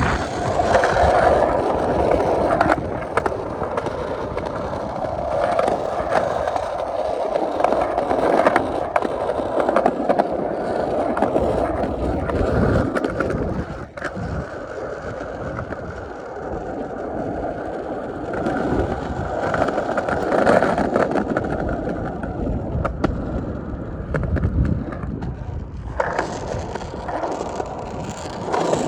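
Skateboard rolling: steady wheel noise with a few sharp clicks along the way.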